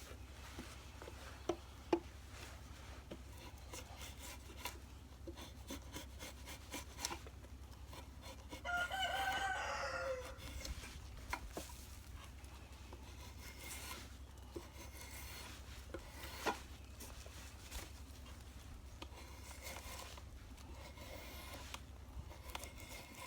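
A rooster crows once, about nine seconds in, the call dropping in pitch at its end. Around it are faint, scattered scraping strokes of a blade shaving bark off a cedar pole on a shave horse.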